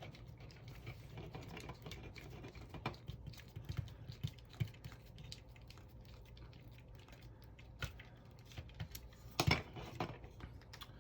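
A small screw being driven by hand through 3D-printed plastic parts: scattered light clicks and ticks of the driver and plastic, with a louder cluster of clicks near the end. A faint steady hum lies underneath.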